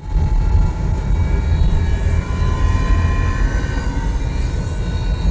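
2010 Subaru WRX five-speed manual transmission whining under load, with heavy drivetrain and road rumble beneath it. The whine is made of several high, steady tones that waver slightly in pitch. It is the fault that the center differential is being replaced to cure.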